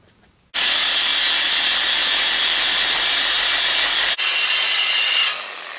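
Reciprocating saw cutting steel angle iron: a loud, steady rasping noise that starts about half a second in, falters for an instant around four seconds, and drops quieter near the end.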